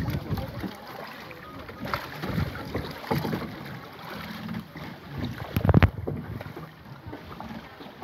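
Water lapping and sloshing around a hand-rowed boat, with wind buffeting the microphone. A single sharp thump stands out just before six seconds in.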